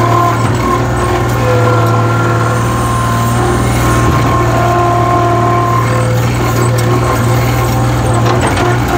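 New Holland skid steer loader running steadily as it pushes dirt with its bucket, with a higher whine over the engine note that shifts a little in pitch.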